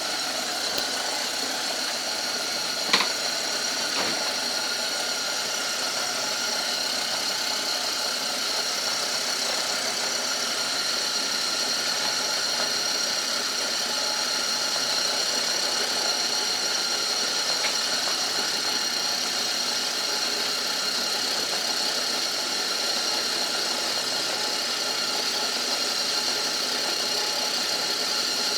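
Old Myford lathe running steadily, a constant machine hum with a high-pitched whine, while turning a traction-bar bush. A sharp click about three seconds in and a softer one a second later.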